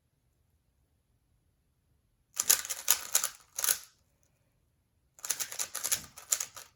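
A 3x3 Rubik's cube being turned fast, in two bursts of rapid plastic clicking: the first starts about two seconds in and the second just after the fifth second. The two bursts are the two U-perm algorithms that finish the last layer.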